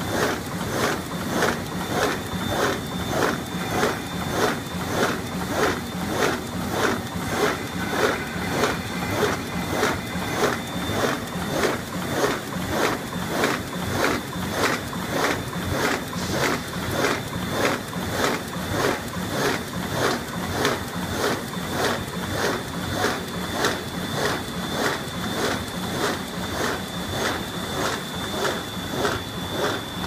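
GUR-iS PSR-900 bag-making machine running, with a regular mechanical clatter of about two strokes a second, one stroke for each bag it seals and perforates in turn, over a steady high whine.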